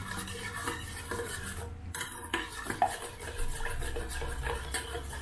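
Metal spoon stirring a thin sauce in a small stainless steel saucepan, with light irregular clinks and scrapes against the pan's sides and bottom as the sugar is stirred in to dissolve.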